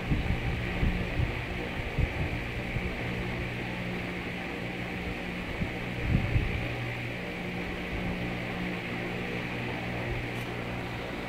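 Steady electrical mains hum with a layer of hiss, with a few soft low knocks near the start and again about six seconds in.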